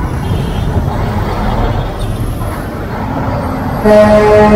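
Motorcycle engines running in slow, congested traffic, a steady low rumble. Near the end a vehicle horn sounds once, a steady note for about half a second, the loudest sound.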